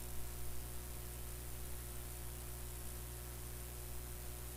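Steady low electrical hum under an even hiss: background noise, with no distinct mechanical sound.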